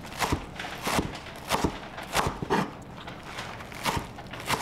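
Kitchen knife chopping green onions on a wooden cutting board: a series of sharp, irregularly spaced knocks as the blade strikes the board.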